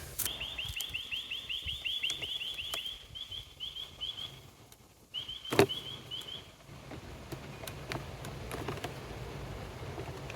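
A bird calling a fast run of short, high chirps, about five a second, for several seconds, then again briefly after a short pause. A single sharp knock comes about halfway through.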